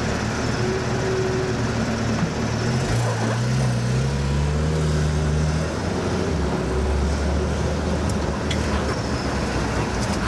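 Car engines running in slow-moving traffic, heard from inside a following car. A few seconds in, an engine note climbs in pitch for about two and a half seconds, then drops away.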